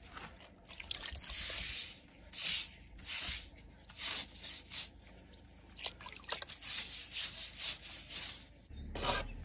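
A paintbrush brushed in repeated strokes over the rough mortar render of a chimney base: a few longer strokes at first, then quicker, shorter ones near the end.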